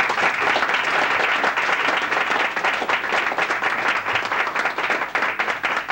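Audience applauding: dense, continuous hand clapping that grows a little more scattered toward the end.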